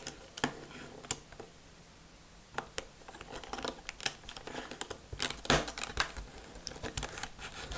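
Plastic Lego bricks and plates being handled and pressed together: scattered light clicks and small rattles, the sharpest about five and a half seconds in.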